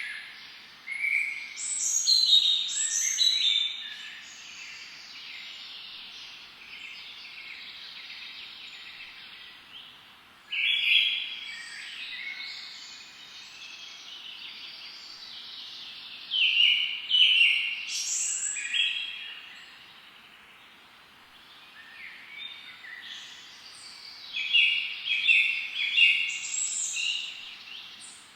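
Wild birds singing: four bouts of quick, high chirps and trills, each lasting a few seconds, separated by stretches of a steady high hiss.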